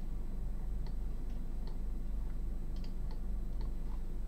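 Computer mouse clicking lightly and irregularly, about eight clicks, over a steady low electrical hum.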